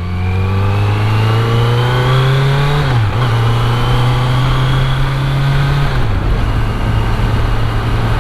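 Kawasaki Z900's inline-four engine accelerating hard, its pitch rising through the gears with an upshift about three seconds in and another about six seconds in, then holding steady, over a steady rush of wind.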